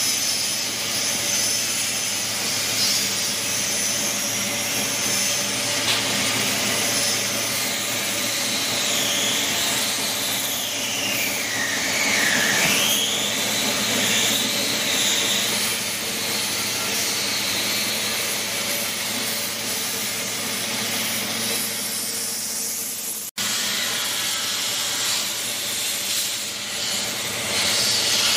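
Steady machinery noise in a steel-fabrication workshop, a constant hum under a high whine that dips sharply in pitch about halfway through and climbs back. The sound drops out for an instant near the end.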